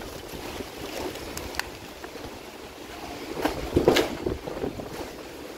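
Typhoon wind buffeting the microphone in uneven gusts, with the strongest gust about three and a half to four seconds in.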